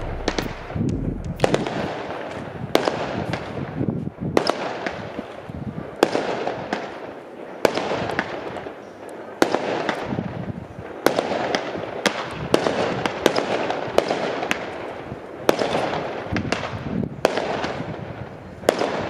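Fireworks and firecrackers going off in a long series of sharp bangs, irregularly spaced about every half second to second and a half, each trailing off in an echo.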